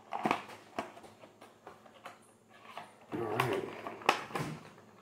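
Pocket knife cutting the tape on a clear hard-plastic figurine case, followed by the case clicking and knocking as it is handled; a sharp click about four seconds in is the loudest.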